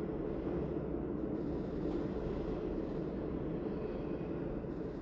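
A steady low rumble of background noise, even throughout with no distinct events.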